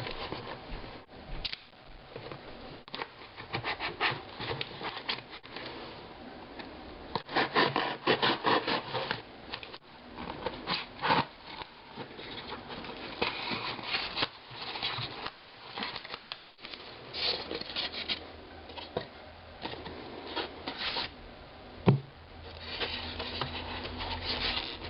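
A parcel being unpacked by hand: irregular rubbing, scraping and rustling of packaging, with one sharp knock near the end.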